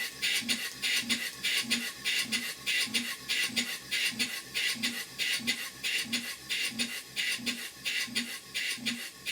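Large duplex (twin-cylinder) boiler feedwater pump running steadily, its valve gear puffing exhaust in sharp hisses with a low knock about twice a second, in an even rhythm.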